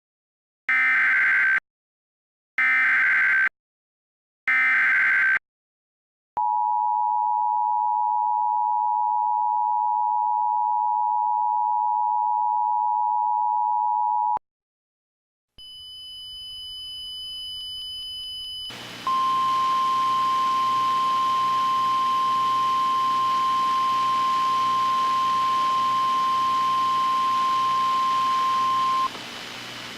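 Emergency Alert System signal. First come three short bursts of screeching SAME header data tones, then the two-tone attention signal held for about eight seconds. After a short gap, a hiss with a faint high whine comes in, and a single steady alert tone, the kind used by NOAA Weather Radio, sounds for about ten seconds.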